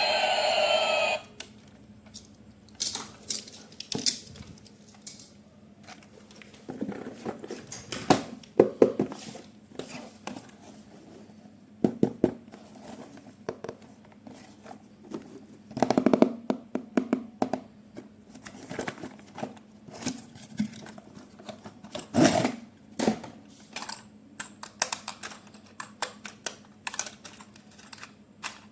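A loud steady sound cuts off about a second in. After it come irregular clicks, taps and rustles of plastic toy parts and packaging being handled, with a few sharper knocks near the middle and toward the end.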